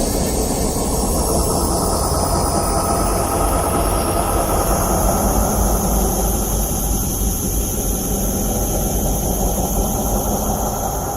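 Horror ambient soundscape: a loud, steady low rumble like a heavy engine or train, with thin high ringing tones held above it.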